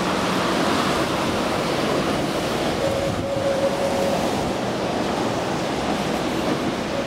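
Steady rushing noise of wind buffeting the microphone outdoors, with a faint steady high whine for about a second around the middle.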